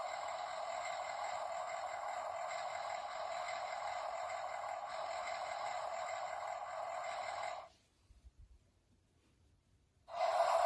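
Electronic sound effect from a toy tractor's tiny speaker: a steady, thin, hissing noise with no bass, like an engine. It cuts off abruptly about three-quarters of the way through and starts again near the end.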